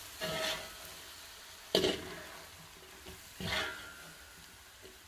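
A spatula stirring and scraping a dry minced-meat filling around a stainless steel pot: three short scrapes about a second and a half apart over a faint sizzle of the frying mince.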